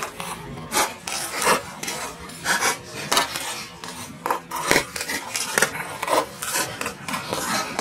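Walnut shells cracking and crunching one after another under a slowly rolling car tyre: an irregular run of sharp cracks, two or three a second.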